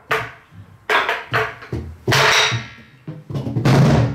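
Soribuk (Korean barrel drum) played with a wooden stick and the bare left hand in a slow, uneven drum rhythm: sharp stick strikes on the drum's wooden shell and deep hand strokes on the head. About eight strokes in all, the loudest about halfway through and a deep one near the end.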